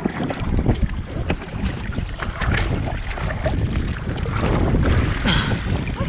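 Wind noise on the microphone and lake water splashing and sloshing against the hull of a Sunfish sailing dinghy as a person climbs out of the water onto its deck, with louder splashes about two and a half and five seconds in.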